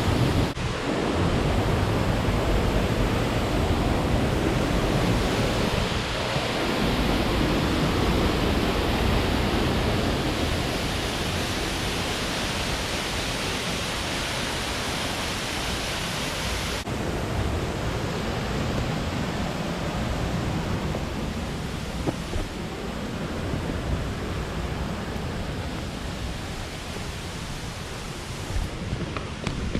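Waterfall rushing steadily, a dense roar with a strong low rumble; the hiss dulls slightly about seventeen seconds in.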